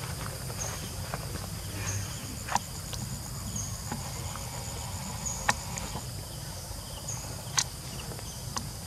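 Insects chirping in short high-pitched bursts that repeat every second or two, over a steady low hum, with three sharp clicks spread through that stand out as the loudest sounds.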